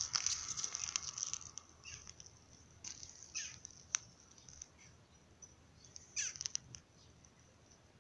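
Shiba puppy nosing and rooting in the grass: soft, scattered rustles and crunches that come in short irregular clusters, with quieter gaps between.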